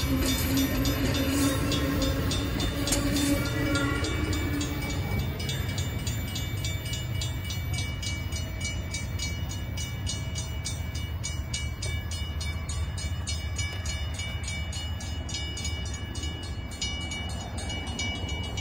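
Amtrak Superliner train rolling past, with horn-like tones that end about five seconds in. A level-crossing bell rings steadily at about four strikes a second and keeps ringing after the train has gone, because the crossing gates have malfunctioned and stay down.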